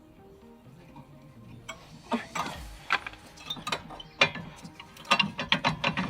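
Socket ratchet clicking in quick runs of strokes, starting about two seconds in, while a fastener on the brake caliper is undone.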